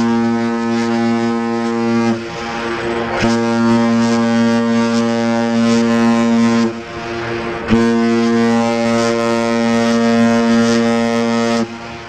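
A large ship's horn sounding long, deep, steady blasts: three long blasts, the sound dipping briefly between them about two and seven seconds in, the last one cutting off shortly before the end and fading out.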